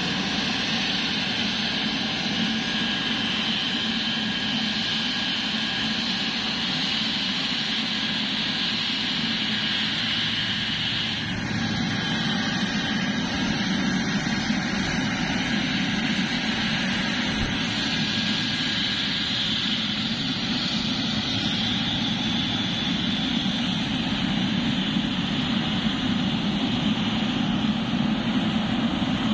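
Boeing 777-300ER's GE90 turbofan engines running steadily, with a high whine that fades out about eleven seconds in and returns several seconds later.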